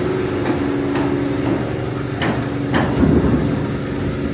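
A handful of sharp knocks, about half a second apart, over a steady mechanical hum on a building site under construction.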